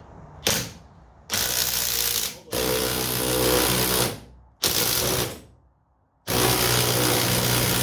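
Power impact wrenches hammering in several on-off bursts, from a fraction of a second to a few seconds long, as they run down the screws of a coil-spring compressor on a front strut.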